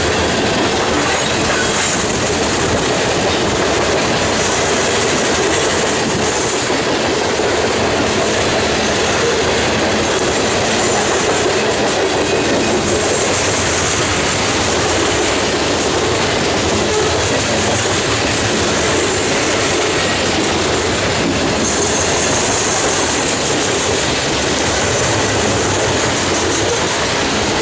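Hopper cars of a Norfolk Southern coal train rolling past close by, their steel wheels clattering steadily on the rails. A high hiss swells and fades a few times over the run.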